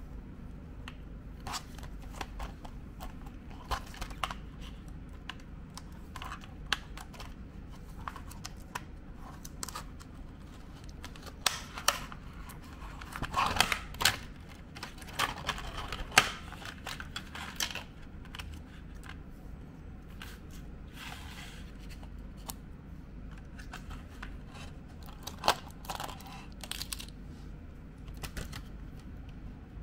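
Hands handling plastic toy packaging: scattered clicks and crinkles from a clear plastic blister pack and bag, with a longer burst of rustling and tearing about halfway through as the bag is opened and its contents pulled out.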